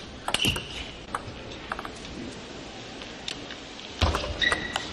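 Table tennis ball being struck by rackets and bouncing on the table: sharp clicks, a few at first and quicker near the end as a rally gets going. Short shoe squeaks sound on the floor, over the steady noise of the hall.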